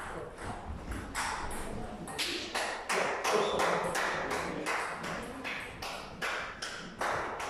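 Table tennis rally: the ball clicks off rubber paddles and bounces on the table, sharp taps coming about two to three a second.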